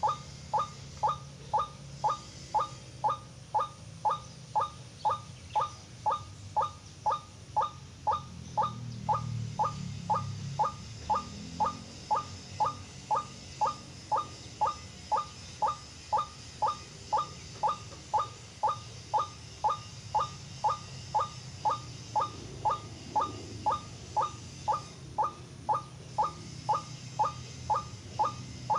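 White-breasted waterhen calls repeated steadily, about two a second, each a short note falling in pitch.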